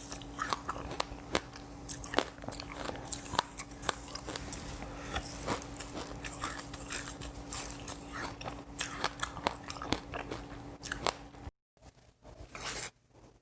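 Close-miked crunching and chewing of seeds, a dense run of sharp crackling bites over a faint steady hum. The sound cuts off abruptly near the end, leaving a few quieter crackles.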